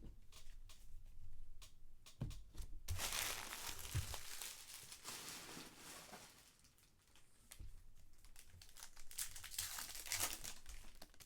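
Trading card pack wrappers crinkling and tearing as packs are ripped open, in two long stretches of rustling, with light ticks of cards being handled before the first.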